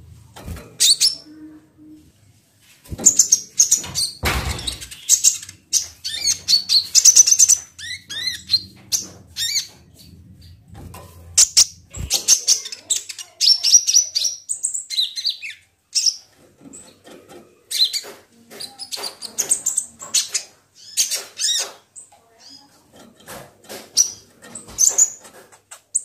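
Kolibri ninja sunbird calling: bursts of very high, rapid chirps and twittering trills, repeated in short phrases with brief gaps. A short rustling noise comes about four seconds in.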